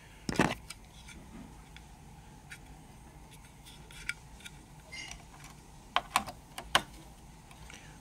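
Scattered clicks and taps of a PCIe Wi-Fi card being handled and fitted into a desktop PC's expansion slot, its metal bracket knocking against the case, with a cluster of sharper clicks about six seconds in.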